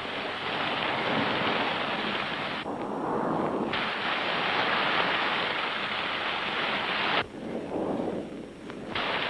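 Storm on a 1930s film soundtrack: a steady rush of wind and rain. The hiss thins briefly about three seconds in and drops away again near the end.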